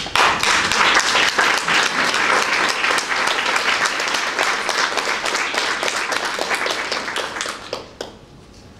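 Audience applauding: a dense round of clapping that starts abruptly, then thins to a few last claps and dies away about eight seconds in.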